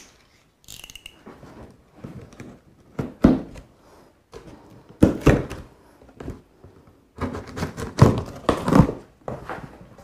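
Cardboard box being cut open with a utility knife: blade scraping and slicing through packing tape, with several sharp thunks of the cardboard as the flaps are pressed and pulled open.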